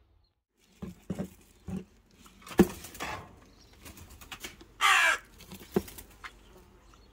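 A crow cawing once, harsh and loud, about five seconds in, among several sharp knocks and thumps.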